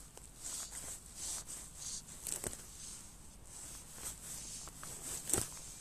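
Light, irregular rustling and scraping of a fly rod and fly line being handled by hand, with a few sharper clicks. The loudest click comes about five seconds in.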